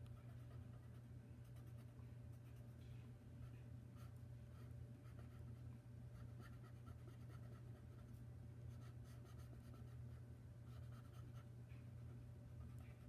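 Faint scratching of a pen moving over paper in short, irregular strokes, over a steady low hum.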